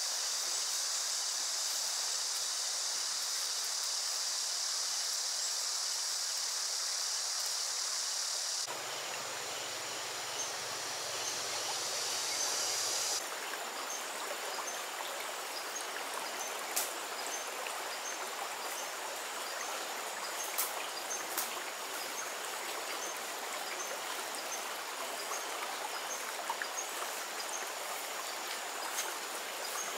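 Rural outdoor ambience: a steady high-pitched insect drone that cuts off about nine seconds in, then an even rushing noise like running water, with faint repeated high chirps and a few sharp clicks.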